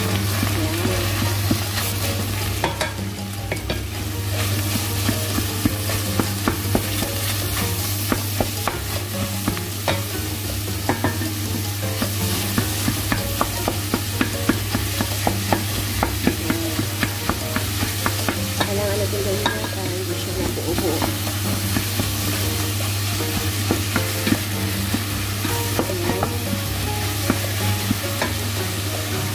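Ground beef, onion and garlic sizzling as they brown in a stainless steel pot, stirred and scraped with a wooden spoon that gives frequent light clicks against the pot. A steady low hum runs underneath.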